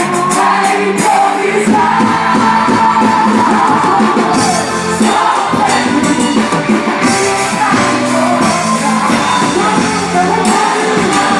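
Loud music with a singing voice over instruments and regular percussion hits.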